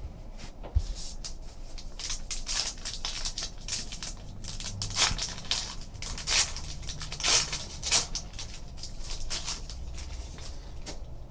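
A foil trading-card pack torn open and crinkled by hand: a run of sharp crackles, loudest around the middle.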